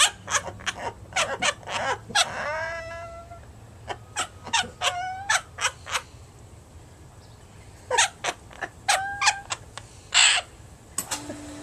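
Quaker parrot (monk parakeet) giving a rapid run of short, harsh squawks, some sliding down in pitch. After a short lull it squawks again, ending with its loudest, harshest screech about ten seconds in.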